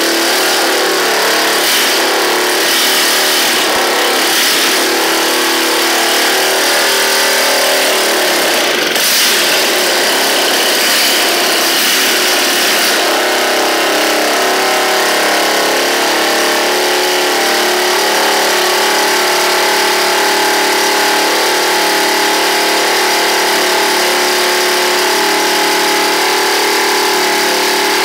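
Bajaj Pulsar 150 DTSI single-cylinder four-stroke motorcycle engine running continuously on a test stand. Its speed wavers a little for the first dozen seconds, then holds steady.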